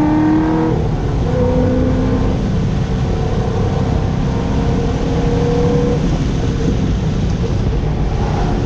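C6 Corvette Z06's 7.0-litre LS7 V8 under load on track: the engine note rises, breaks off just under a second in and comes back lower, as on an upshift, then runs fairly steady with tyre and road noise.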